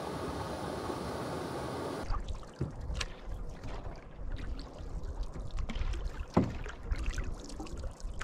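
Wooden canoe paddle strokes dipping and swishing through calm lake water, with irregular splashes and drips over a low rumble. For the first couple of seconds there is only a steady hiss, then the strokes begin.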